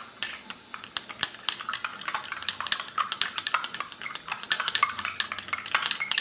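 Glass stirring rod clinking rapidly and irregularly against the inside of a glass beaker while copper sulphate is stirred into water to dissolve it.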